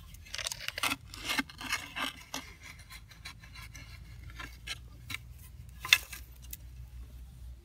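A metal-bladed hand tool scraping and digging into dry, sandy soil at a burrow entrance, in quick irregular scrapes that thin out after about three seconds. A single sharp click near six seconds is the loudest sound.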